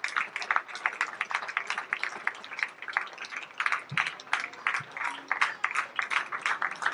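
Audience applauding, the claps of many hands overlapping unevenly.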